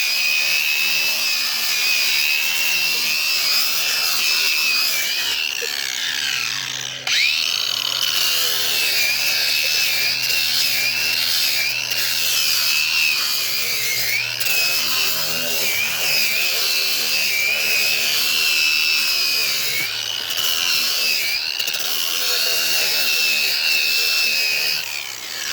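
Power grinder running against cured fiberglass filler on a boat hull repair, fairing it down; its whine wavers in pitch as it is pressed and eased, dips briefly about seven seconds in, and winds down at the very end.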